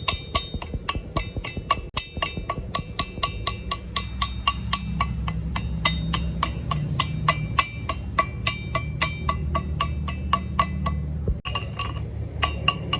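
A hammer strikes steel quickly and steadily, about four to five blows a second, and each blow rings. A steady low machine hum runs underneath. There is a brief break about eleven and a half seconds in, then the hammering goes on.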